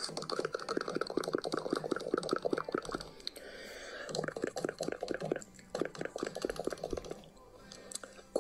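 Rapid clicking, roughly ten clicks a second, in two runs with a short break about three seconds in, then quieter near the end.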